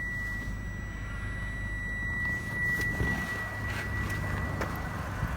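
Toyota Camry 50's 2.5-litre four-cylinder engine idling in gear with the air conditioning on, a steady rumble under load with a thin steady whistle over it. There is no knock: the worn balance shafts that caused the idle knock and vibration have been replaced.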